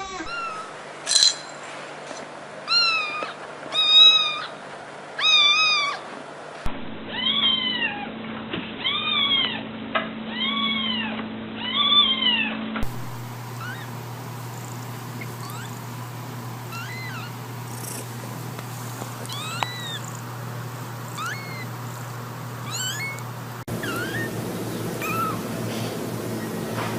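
Cats meowing across a run of abruptly cut clips: an adult cat meows about four times, then another cat meows about five times, roughly once a second, each call rising and falling. About halfway through come a newborn kitten's thin, high-pitched mews, and near the end young kittens' faint mews.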